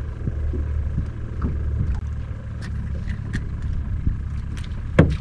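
Steady low rumble of wind and water around a small fishing boat, with faint clicks as a caught speckled trout is handled and unhooked, and one sharp knock about five seconds in.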